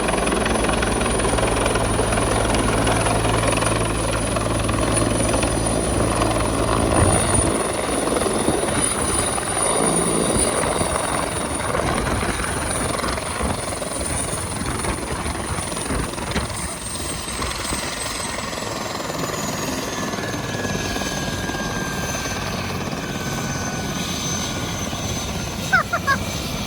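Bell UH-1 Huey helicopter's turbine and rotor running, with a heavy low rotor beat that falls away about a third of the way in. A high turbine whine then drops steadily in pitch as the helicopter winds down. A couple of short clicks come near the end.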